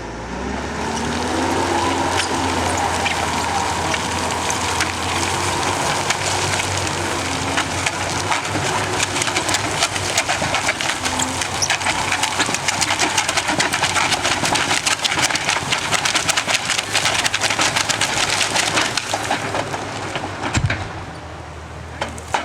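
Forestry tractor's engine and crane hydraulics running under load, rising in pitch at the start, while an EB550 delimbing head strips a trunk with many rapid sharp cracks of branches snapping. The cracking is densest in the middle and later part, and the engine drops away near the end.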